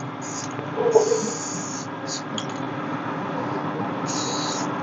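Aerosol can of rust paint spraying in short hissing bursts, the longest lasting nearly a second, over a steady low hum.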